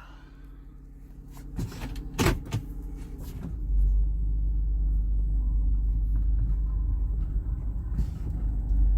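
2008 Toyota Highlander running, with a few sharp clicks about two seconds in; from about three and a half seconds a deep, steady rumble comes up and holds as the car is tried out on its freshly serviced brakes.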